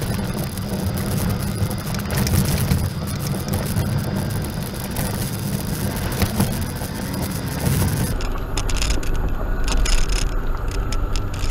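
Suzuki Grand Vitara driving slowly up a rough dirt track, heard from inside the cabin: steady engine and tyre rumble with frequent clicks and knocks from the rough ground. About eight seconds in the sound changes abruptly to a deeper rumble with sharper rattles.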